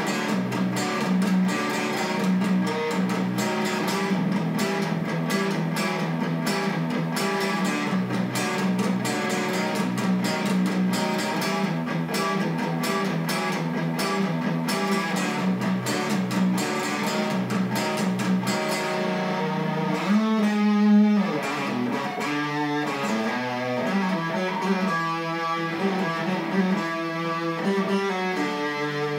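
Chapman ML7 seven-string electric guitar played through an amp with raised gain: fast, dense picked riffing for most of the stretch, then, about two-thirds of the way in, slower held notes and chords left to ring.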